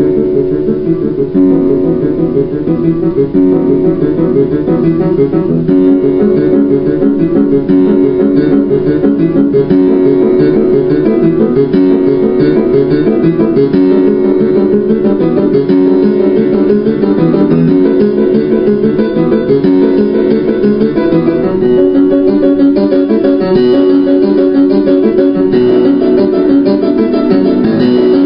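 Film-soundtrack music played on plucked strings, guitar-like, with a dense run of notes that carries on without a break at a steady level.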